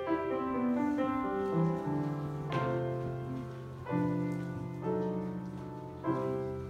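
Solo grand piano playing a classical piece, a melody over sustained chords, with new chords struck about four times and each left to ring and fade. The playing gets quieter toward the end, as the piece nears its close.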